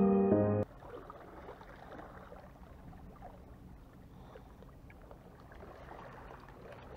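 A short musical jingle cuts off about half a second in. Then faint sea ambience follows, small waves lapping against the rocks of a breakwater, with a few light clicks.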